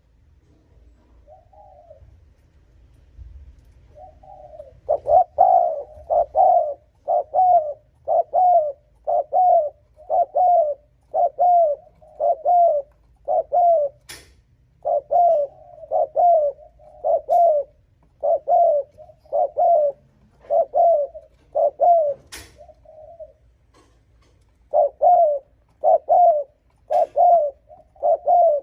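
Spotted dove cooing: short, repeated 'gù' coos at about one a second, after a few softer coos at the start. The run breaks off briefly near the end, then starts again. A few sharp clicks come in between the coos.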